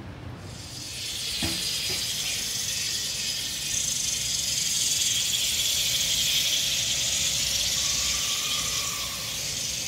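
A loud, steady high-pitched hiss that swells in over about a second, holds, and fades away near the end.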